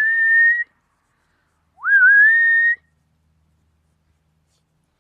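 A person whistling twice. Each whistle is a quick upward slide into a steady high note held for about a second, and the second has a slight dip in pitch.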